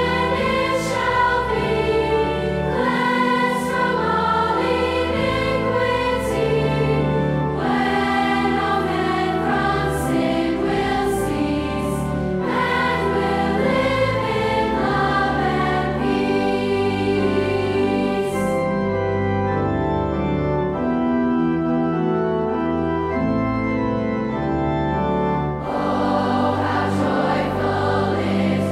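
Large girls' choir singing a hymn with pipe organ accompaniment. About two-thirds of the way through, the voices stop and the organ plays alone for several seconds, then the choir comes back in.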